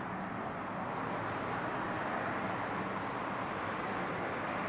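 Steady outdoor background noise with no distinct events, an even hiss-like wash strongest in the middle range.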